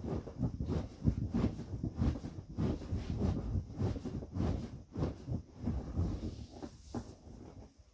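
Inflatable vinyl bunnies rubbing and squeaking as they are handled and pressed, in a fast, irregular run of short rubs and crinkles that dies away near the end.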